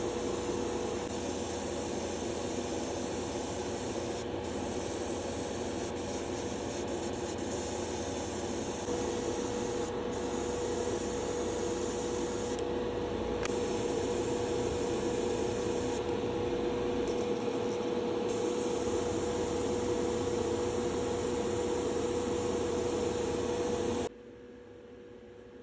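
Airbrush spraying paint onto a crankbait lure body through a comb stencil: a steady hiss over a low hum, the hiss pausing briefly a few times as the trigger is let off. It cuts off sharply about 24 seconds in.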